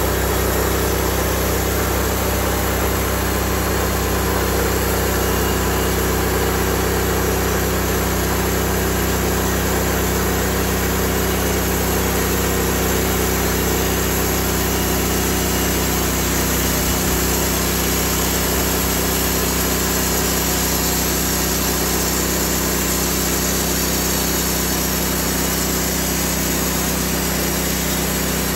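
Gas engine of a Log Father portable bandsaw sawmill running steadily under load while the band blade saws through an eastern white pine log.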